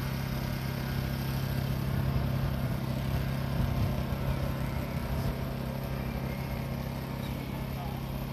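A small engine running at a steady speed: a constant low hum that does not rise or fall.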